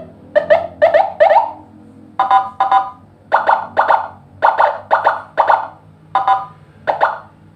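Senken electronic siren module sounding a pattern of short, quickly rising chirps, mostly in quick pairs repeating about once a second.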